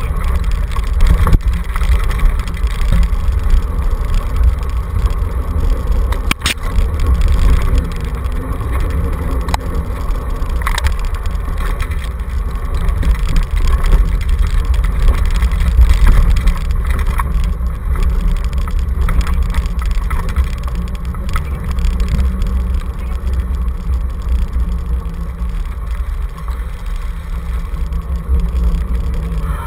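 Steady, loud rumble and rattle of a dog-pulled kick scooter rolling fast over a rough dirt trail, mixed with wind buffeting the microphone, with an occasional knock as the wheels hit bumps.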